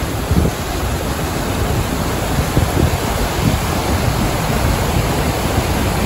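Fast-flowing Narmada river rushing over the rapids by the Dhuandhar waterfall: a loud, steady roar of water, with wind buffeting the microphone.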